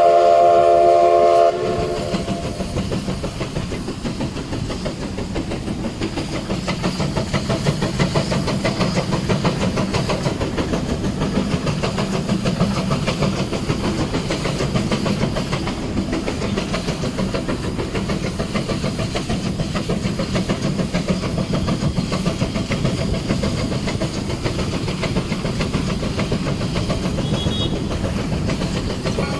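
1947 Baldwin Mikado steam locomotive: its whistle sounds loud and steady and cuts off about a second and a half in, then the train runs on with a steady rhythmic clatter on the rails.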